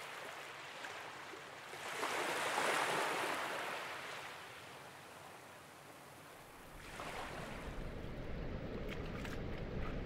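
Surf washing onto the beach: a wave's rush builds about two seconds in and dies away by about five seconds, with a smaller wash near seven seconds.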